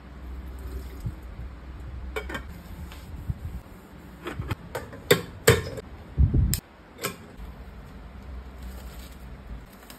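Kitchen clatter of a pot and its glass lid being handled: a string of clinks and knocks over a few seconds, the loudest a heavier knock about six seconds in.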